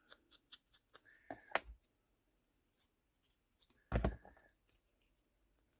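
Paper and craft pieces handled on a desk: a scatter of small clicks and taps, with two louder short knocks about a second and a half and four seconds in, each trailed by a brief thin scrape.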